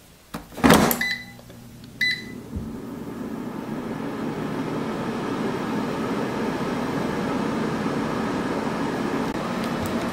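Air fryer basket pushed home with a knock, two short beeps from the control panel, then the Cook's Essentials air fryer's fan starts up and runs with a steady hum.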